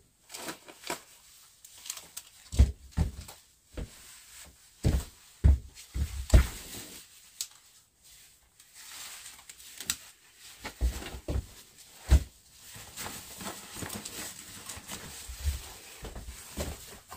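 Handling noises in a small kitchen: a string of irregular thumps and knocks, with a couple of sharp clicks, as a person puts on outdoor gear and picks up a backpack, then nylon jacket and bag rustling from about two-thirds of the way through.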